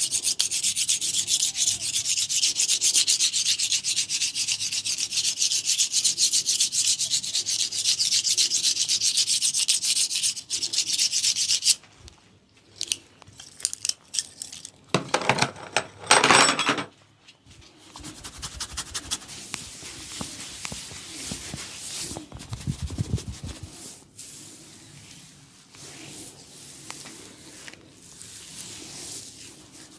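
A barber's hands rubbing fast through oiled hair on a scalp, a dense, rapid scratchy hiss for the first twelve seconds. Then come a few separate strokes and one louder, fuller rub a little past the middle, followed by softer, quicker rubbing.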